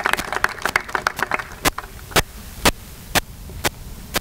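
Audience applause that thins out and stops within about a second and a half, followed by single sharp taps about two a second.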